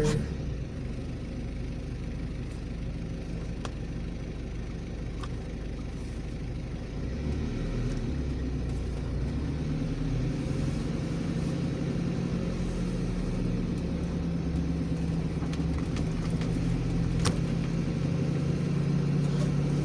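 Car driving, heard from inside: a steady low rumble of engine and road noise that grows louder about seven seconds in, then settles into a steady engine hum as the car picks up speed.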